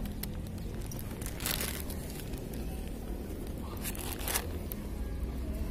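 Rustling, crinkling handling noise from the camera being moved about on the scooter, loudest about one and a half seconds in and again around four seconds in, over a steady low rumble.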